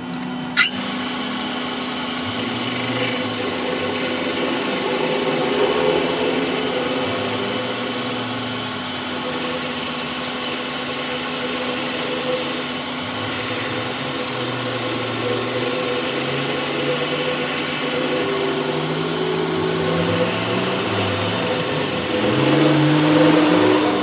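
A workshop machine running steadily with a hum, and a sharp click about half a second in.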